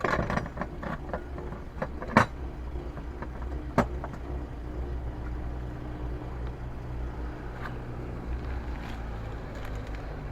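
Power door locks clicking twice, about two and four seconds in, over a steady low hum.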